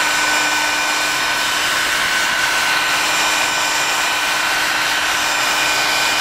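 Hot-air heat gun blowing steadily: a loud rush of air with a thin, steady whine, heating flux-covered chips and capacitors on a logic board.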